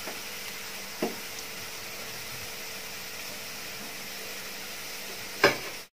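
Hot oil frying sliced onions in a steel pot, a steady hiss, with a light knock about a second in and a sharper knock near the end.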